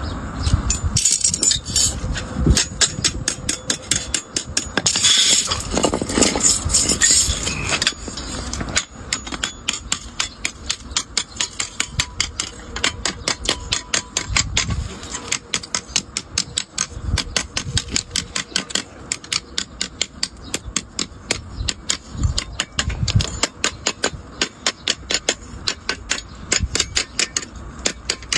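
Hand hammer striking sheet iron on an anvil while a spatula handle is forged. The blows are irregular at first, then settle from about nine seconds in into a steady, even run of about three strikes a second.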